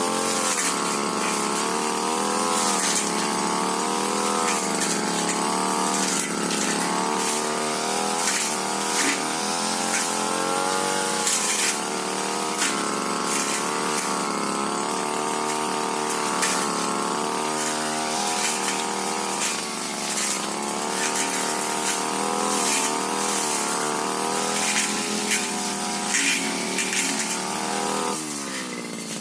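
Tiger TG328 brush cutter engine running at high speed while cutting through scrub, its pitch wavering up and down as the blade meets the brush, with scattered sharp ticks. Near the end the engine speed drops and then picks up again.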